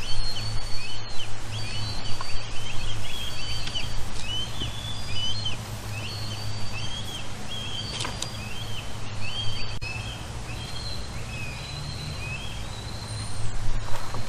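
Many short, high chirping animal calls, several a second and overlapping, over a steady low hum.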